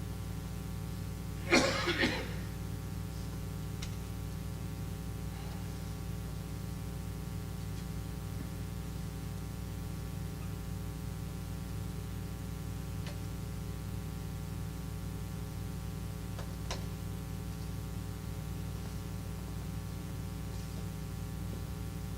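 Quiet room with a steady electrical hum. One brief loud noise comes about one and a half seconds in, and a few faint ticks follow later.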